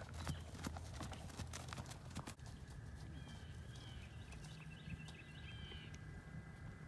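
A horse's hooves clip-clopping on dry turf as it moves past close by, a quick run of hoofbeats for about the first two and a half seconds. Then the hoofbeats fade, leaving faint high chirps.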